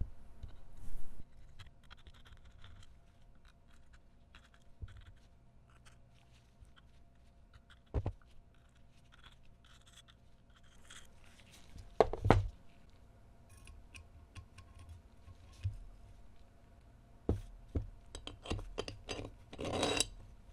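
Small metal pistol parts being handled and worked by hand, making scattered light clicks and scratches. There are a few sharper knocks, a double knock about twelve seconds in, and a quick run of clicks with a short rasp near the end.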